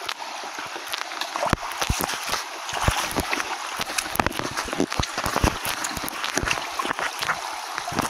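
Creek water running steadily over rocks, with many irregular knocks of footsteps on rock and bumps of a handheld phone.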